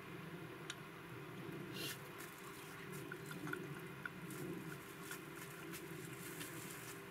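Soft wet eating sounds from a pot of soup pasta: a wooden spoon stirring and lifting noodles out of the broth, with scattered light clicks and a brief slurp-like burst about two seconds in, over a steady low background hum.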